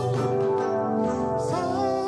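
Male vocal group singing in close harmony through microphones, holding a sustained chord that moves to a new chord about a second and a half in.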